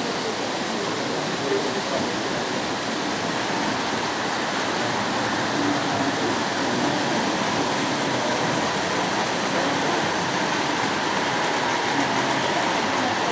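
Steady rushing background noise of a busy hall, with indistinct voices talking in it.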